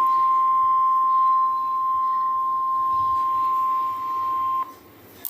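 Emergency alert warning tone: one steady, loud, high single-pitch beep of about 1 kHz, like the 1050 Hz NOAA Weather Radio warning alarm, held for several seconds and cutting off suddenly near the end. It signals that a warning message follows.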